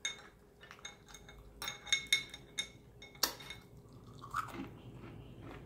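Eating sounds from crisp battered fried food: a run of sharp crackles and clicks as pieces are picked from the serving tray and bitten, the loudest about three seconds in, then softer chewing.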